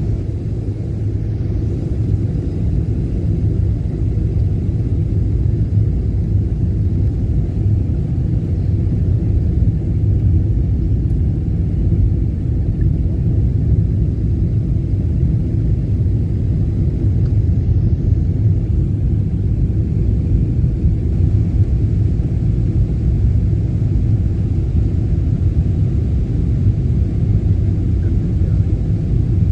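Jet airliner cabin noise during descent: a steady low rumble of engines and airflow, heard from a window seat inside the cabin.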